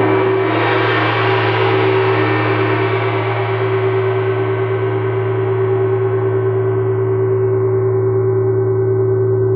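A 24-inch wind gong ringing after being played with a padded mallet. Its bright shimmer swells about a second in and then slowly fades, leaving a steady low hum and a clear mid tone.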